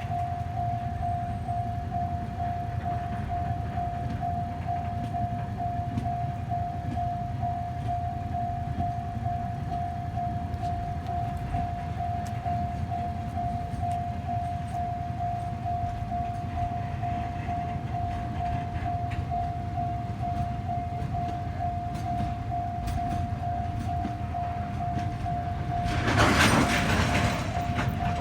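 Japanese level-crossing warning bell ringing on without a break, a steady pulsing electronic tone over a low rumble. Near the end, a loud rushing burst lasts about a second and a half.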